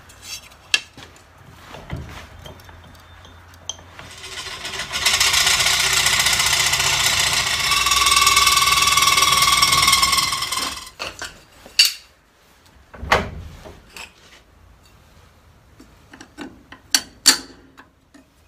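Aerosol spray paint can: a few sharp clicks and rattles, then a loud, even hiss of spraying that starts about four seconds in and lasts about seven seconds, followed by scattered knocks and clicks.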